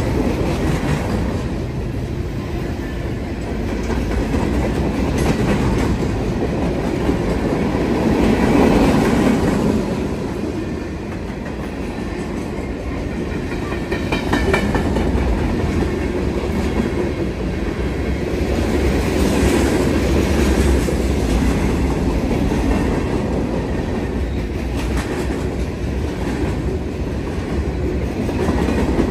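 Freight train cars rolling past at close range: a continuous rumble of steel wheels on the rails, with clicks of wheels over the rail joints.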